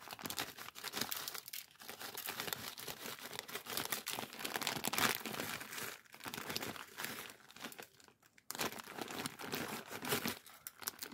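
A plastic bag of brown sugar crinkling irregularly as it is handled and tipped out, with a short lull about eight seconds in.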